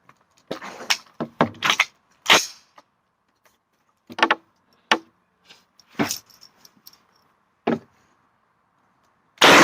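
A series of sharp metallic clicks and knocks as an SKS rifle is handled, then a single loud SKS rifle shot near the end, its echo fading away over a couple of seconds.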